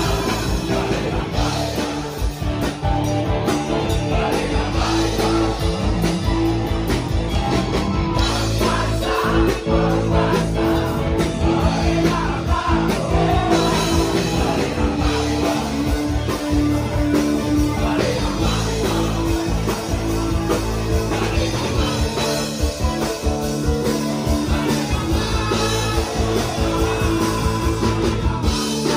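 Live band music over a PA system: a woman singing into a handheld microphone, backed by electric guitar and a drum kit, playing steadily.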